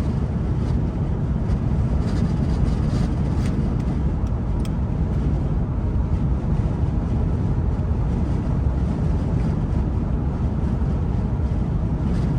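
Steady road and engine noise inside a car cruising on the highway, a low rumble with a few faint ticks a few seconds in.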